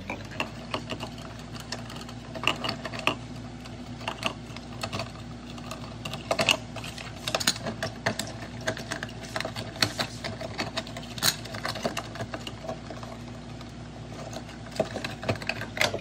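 Irregular light clicks and rattles of stiff electrical wires, plastic wire caps and a dimmer switch being handled and pushed into a wall electrical box, over a steady low hum.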